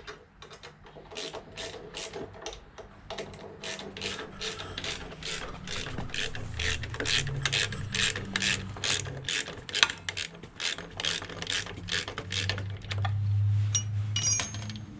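Hand ratchet wrench clicking steadily, about three clicks a second, as it backs out the bottom mounting bolt of a motorcycle ignition coil. The clicking stops about twelve seconds in.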